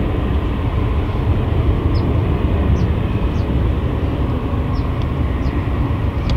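Jet engines of a departing Boeing 787-8 airliner, a steady low rumble as it climbs away after takeoff.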